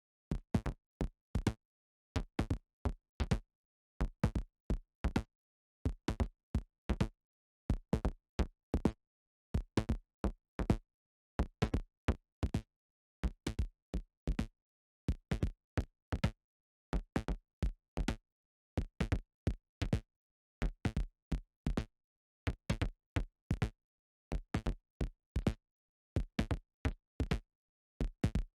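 Synthesized percussion hits from the Surge software synthesizer: short, sharp strikes a few times a second in a pattern that repeats about every two seconds, with silence between the hits.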